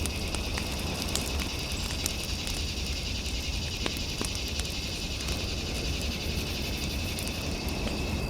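Fireplace fire crackling, with scattered sharp pops over a low steady rumble. A steady high trilling tone runs under it throughout.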